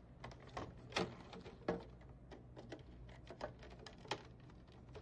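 Faint, scattered clicks and taps of needle-nose pliers pressing in the retaining tabs of a self-facer shelf pusher's wing. The clearest come about a second in, just before two seconds and about four seconds in.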